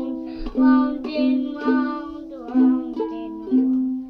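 Ukulele music: strummed notes repeating about once or twice a second, with a singing voice over them, cutting off abruptly just after the end.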